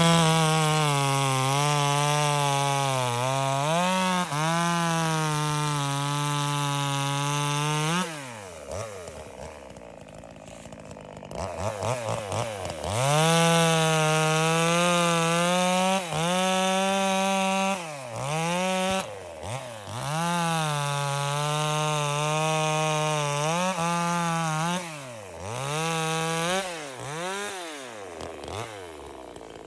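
A Workfix mini chainsaw running at high speed and cutting wood. Its motor whine holds fairly steady for stretches of several seconds, then several times winds down almost to a stop and spins back up as the trigger is released and pressed again.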